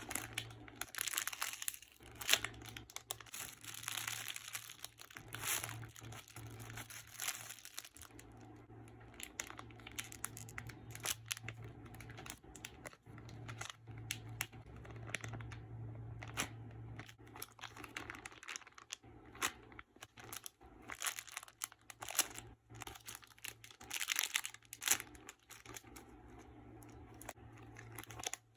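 Irregular plastic crinkling and rustling, full of small sharp crackles, from squishy toys and their plastic packaging being handled. A faint steady low hum lies underneath.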